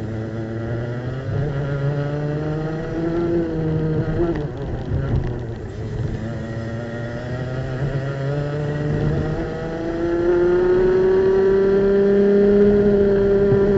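Two-stroke racing kart engine heard onboard, pulling at low revs through a slow corner, then revving up steadily as the kart accelerates onto the straight. It grows louder about ten seconds in, near full revs.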